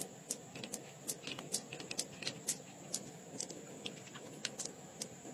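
Irregular small, sharp clicks and ticks, several a second, from fingers handling loose pearls and the wet flesh of an opened pearl oyster.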